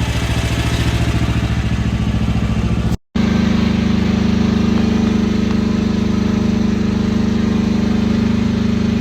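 Mini excavator's diesel engine running steadily, with a momentary cut to silence about three seconds in.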